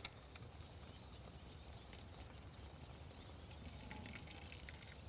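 Faint steady hiss and splash of water from a travelling irrigator's two part-circle sprinklers, as their jets lose pressure and fall to weak streams and dribbles: the pump has been shut off at the end of the irrigation run.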